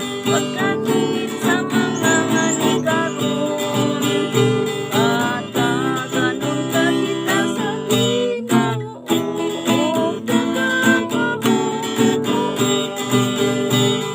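Music led by a strummed acoustic guitar, with a wavering melody line over the chords.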